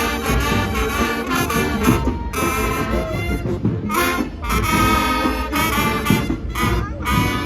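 Band music led by brass instruments, with a steady rhythmic pulse.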